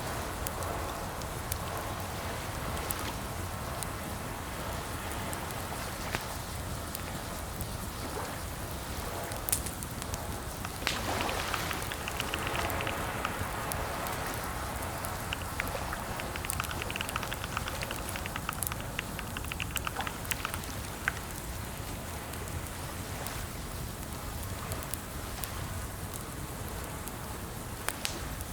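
Computer keyboard typing, irregular key clicks that come in quick runs about twelve seconds in and again from about sixteen to twenty seconds, over a steady background hiss.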